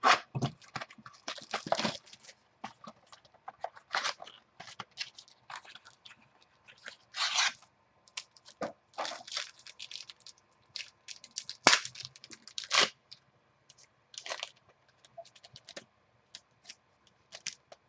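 A plastic-wrapped trading card pack is cut open with scissors, then the wrapper crinkles and crackles in irregular bursts as the cards are pulled out and handled.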